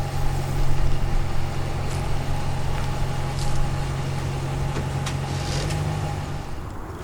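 Two-stroke chainsaw running steadily at high revs, its pitch rising slightly near the end before the sound drops away.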